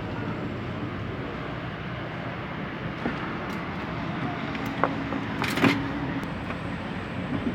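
Car engine running steadily, with a few short clicks and a brief sharp rattle about five and a half seconds in.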